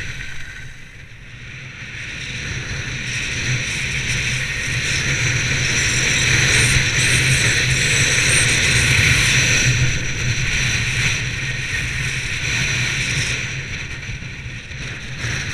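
Wind rushing over the microphone of a moving action camera, with skis hissing and scraping over packed snow on a fast descent. The rush eases about a second in, builds again, and eases once more near the end.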